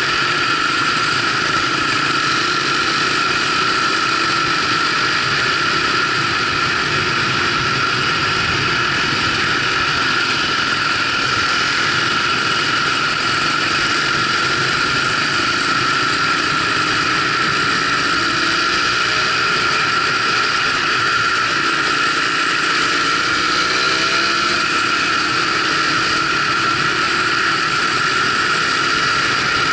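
Motorcycle engine running at a steady cruising pace, heard from on the moving bike, with a constant high whine and wind and road noise. The engine note shifts briefly in pitch about three quarters of the way through.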